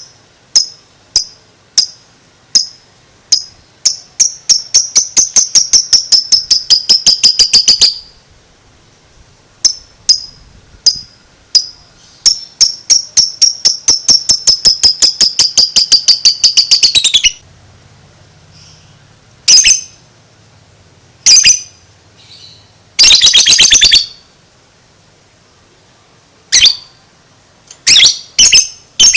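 Lovebird chattering in the long 'ngekek' song: sharp high chirps that start spaced apart and speed up into a long, rapid run of calls. This happens twice, and is followed by a few single chirps and a short quick burst.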